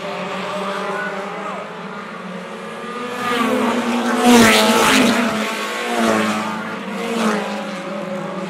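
Race car engines at speed, several cars going past one after another. The loudest passes close about four seconds in, and two more follow near six and seven seconds, each with its engine pitch sliding as it goes by.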